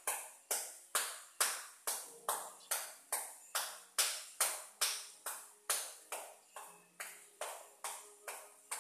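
Sharp percussive strikes repeated at an even pace, about two and a half a second, each fading quickly with a short ringing tail.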